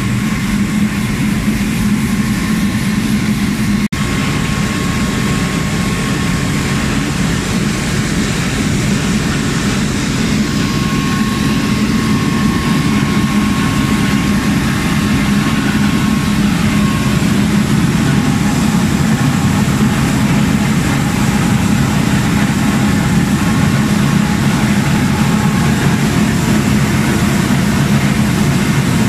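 Rice mill processing machinery running: a loud, steady mechanical drone with a low hum and a fainter higher whine that comes and goes.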